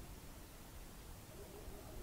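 Near silence: faint room tone and hiss.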